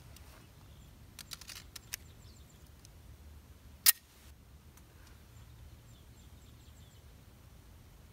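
Light metallic clicks of a 9mm Benelli MP3S pistol being handled, a quick run of them about a second in, then one sharp snap midway. Faint bird chirps are in the background.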